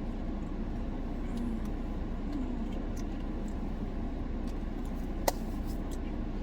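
Steady low hum inside a car cabin with the engine running and the air conditioning blowing. A single sharp click about five seconds in.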